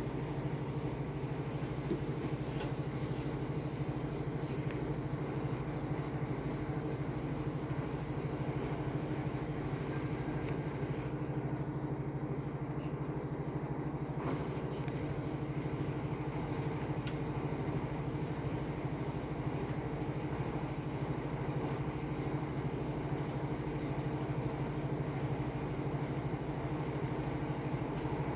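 Washing machine spinning in its spin cycle: a steady, even drone with a constant low hum.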